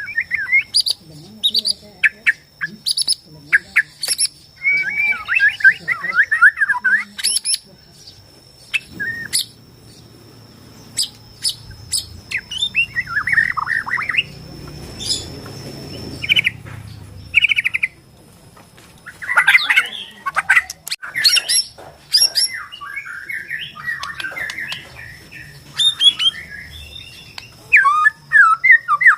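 White-rumped shama of the Borneo type (murai batu Borneo) singing: runs of fast warbling notes mixed with sharp, clipped notes, phrase after phrase with short pauses between.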